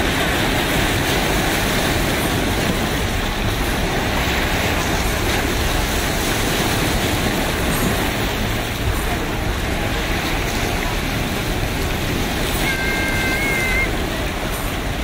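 Small sea waves washing in among volcanic rocks and over a pebble beach: a steady rushing wash of surf.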